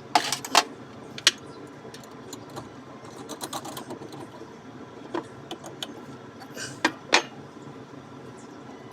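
Scattered sharp clicks and knocks of tools and small parts being handled on a workbench: a quick cluster near the start, light ticks in the middle, and two louder knocks about seven seconds in.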